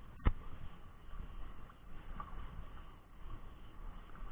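Faint wind noise buffeting the microphone, with one sharp click a quarter of a second in.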